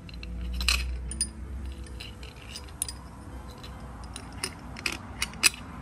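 Metal parts clinking and a roller chain jingling as an engine oil pump and its drive chain are handled and offered up to the engine block, with scattered light clinks and a sharper one near the end.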